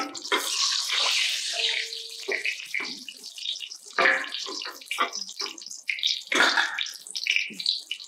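Paneer-stuffed whole tomatoes frying in hot oil in a steel kadai: the oil sizzles with a steady hiss broken by irregular crackles.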